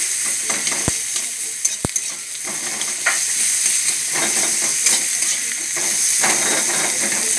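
Sliced onions sizzling in hot oil in a metal kadai, stirred with a metal spatula that scrapes and knocks against the pan. Two short sharp clicks come about a second apart near the start.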